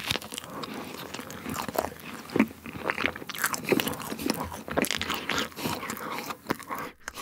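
Biting into a soft whipped-cream fruit sandwich of strawberry, kiwi and grape, then chewing it wetly, close to the microphone: a steady run of squishy smacks and small crunchy clicks.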